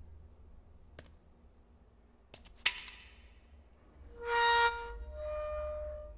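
Horror-film score sting: a few faint clicks, then a sharp ringing hit about two and a half seconds in, then a loud held reedy tone that drops to a second, quieter pitch about a second later and stops near the end.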